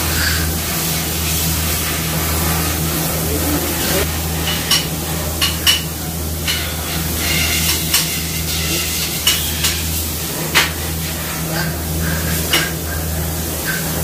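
Hammer striking a metal punch against parts inside an automatic transmission case: about ten sharp metallic taps with a brief ring, irregularly spaced, starting about four seconds in. A steady low hum runs underneath.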